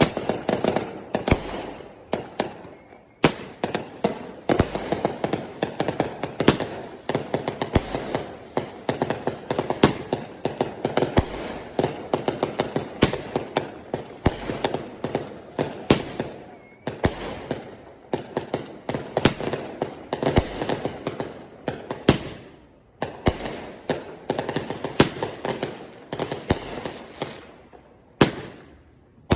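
Consumer fireworks going off in rapid succession: dense volleys of sharp bangs over continuous crackling, with brief lulls about three seconds in, around twenty-three seconds, and near the end.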